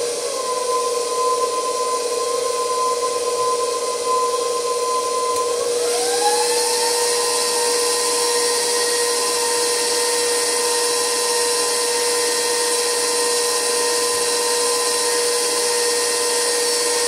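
Electric stand mixer beating buttercream frosting, its motor giving a steady whine. About six seconds in, the whine rises in pitch as the mixer is turned up to a higher speed, then holds steady.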